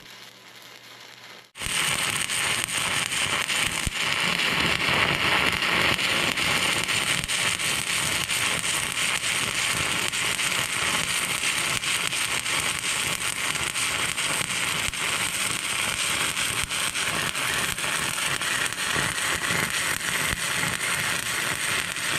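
Stick-welding arc, a 5/32-inch Blue Demon hard-facing electrode run at 150 amps, striking about a second and a half in and then crackling and hissing steadily as the bead is laid.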